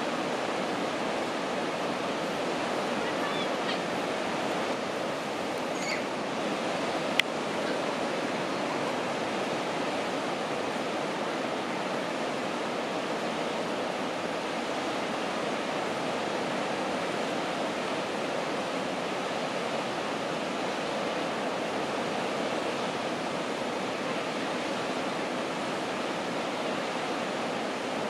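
Steady rush of sea surf breaking on the beach, with one sharp click about seven seconds in.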